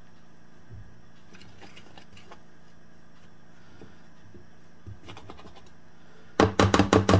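Wire whisk stirring flour in a ceramic bowl: soft scratching at first, then near the end a quick run of about eight sharp clacks as the whisk knocks against the bowl.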